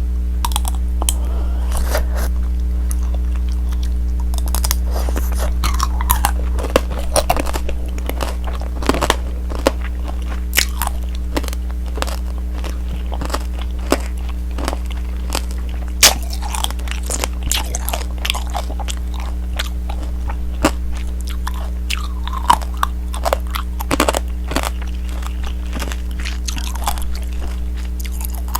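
Biting into and chewing tanghulu: the hard sugar-candy shell over the fruit cracks and crunches in sharp, irregular snaps. A steady low hum runs underneath.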